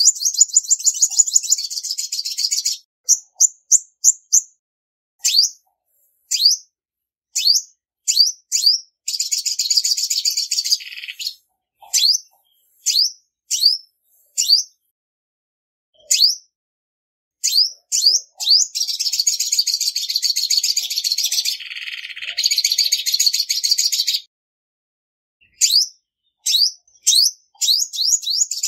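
Female olive-backed sunbird calling: sharp, high chip notes repeated at irregular intervals, broken by several fast trills lasting a few seconds each, the longest in the middle. Clean recording with no other sounds.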